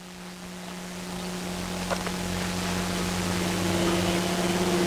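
Room tone: a steady hiss with a low hum, growing gradually louder, and one faint tick about two seconds in.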